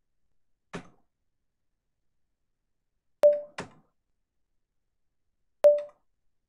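Computer keyboard keystrokes, four sharp clicks: a faint one about a second in, a loud one and a softer one close together in the middle, and a loud one near the end. The two loud clicks have a brief ringing tone.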